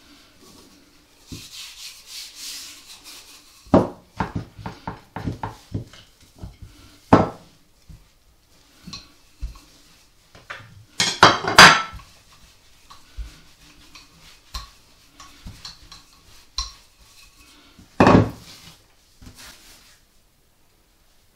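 Wooden rolling pin and crockery knocking and clattering on a wooden worktop. There is a run of light knocks, a louder rattling clatter about eleven seconds in, and one heavy knock near the end.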